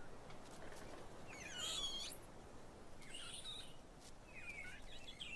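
Several high-pitched animal calls over a faint background: a bending, falling call about one and a half seconds in, then shorter calls near the end.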